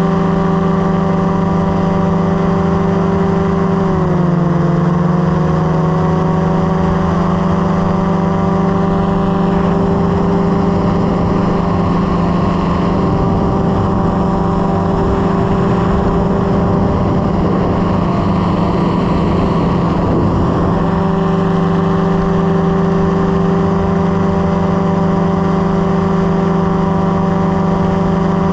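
Light aircraft engine droning steadily in flight, heard from on board. Its pitch drops briefly about four seconds in and settles back over the next couple of seconds, and an extra rushing noise rises through the middle.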